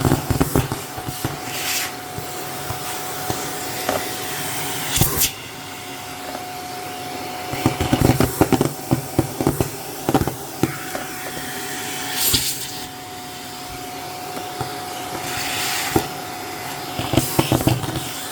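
Shark vacuum cleaner running steadily, its motor holding one even tone, with clusters of rapid clicking and rattling as packing peanuts are sucked up the hose.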